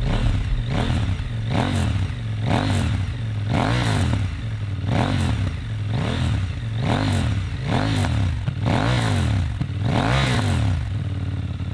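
KTM 890 Duke's parallel-twin engine, fitted with a full race exhaust, blipped on the throttle from idle: about a dozen quick revs roughly a second apart, each rising and falling in pitch, then settling back to idle near the end.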